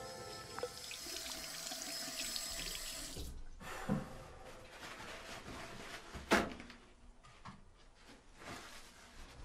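Bathroom sink tap running into the basin, shut off about three seconds in; a couple of short knocks follow.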